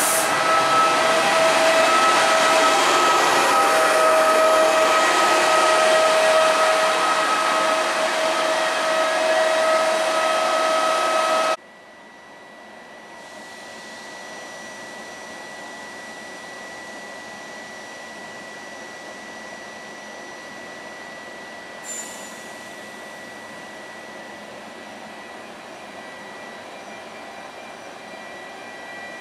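Trenitalia E.464 electric locomotive pushing a regional train away along the platform, running loud with steady whining tones over the rush of the wheels on the rails. About eleven and a half seconds in, the sound cuts abruptly to the quieter steady hum of another E.464 standing at the platform, with one short click about ten seconds later.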